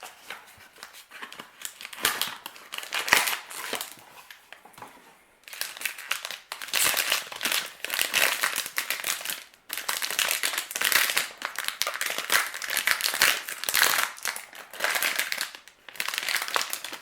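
Toy mystery-box packaging crinkling in irregular handfuls as it is torn open and handled. It is quieter at first and busier and louder from about five seconds in.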